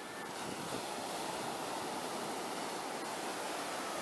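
Ocean surf breaking and washing up the beach: a steady rushing noise that swells a little about half a second in.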